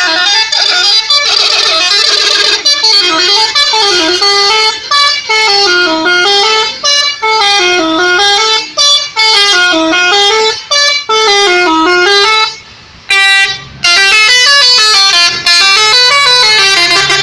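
Bus musical horn playing a repeated tune: several tones together sweep down and back up in short phrases about every second and a half, with a brief break about two-thirds of the way through.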